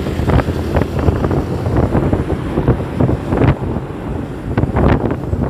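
Wind buffeting the microphone of a camera on a moving motorcycle: a loud, gusting rumble.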